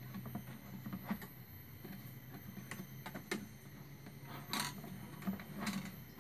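Iron wire being threaded through and twisted on a plastic bucket lid: scattered clicks and scrapes of wire against plastic, a few sharper ones near the end, over a steady low hum.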